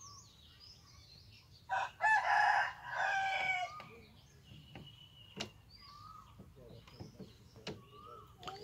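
A rooster crowing once, a loud call about two seconds long starting near two seconds in. Small birds chirp faintly throughout, and there are a couple of sharp clicks later on.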